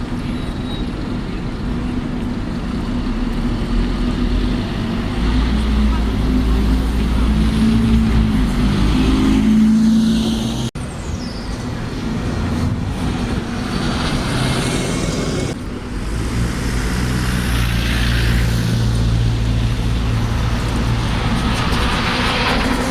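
Road traffic in a city street: engines of buses and other vehicles running and passing, with the sound changing abruptly about eleven seconds in.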